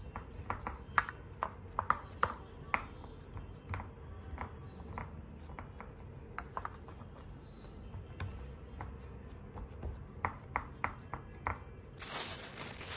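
Hands pressing and flattening stuffed dough rounds in an aluminium baking tray: scattered light taps and clicks against the metal pan. Near the end, plastic sheeting crinkles as it is handled.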